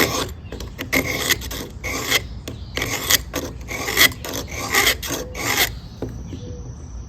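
Utility knife blade's spine stroked back and forth on the coarse side of a Smith's diamond sharpening stone, a run of quick rasping strokes that stops about six seconds in. The spine is being sharpened for scraping a ferro rod.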